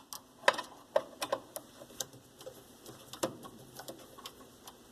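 Screwdriver working a screw loose from a typewriter's back cover: irregular small metallic clicks and scrapes, the sharpest about half a second in and again a little past three seconds.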